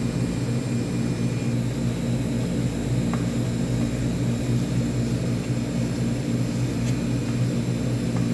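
Steady drone of a kitchen ventilation fan, with a couple of faint knife taps as raw beef is cut into cubes.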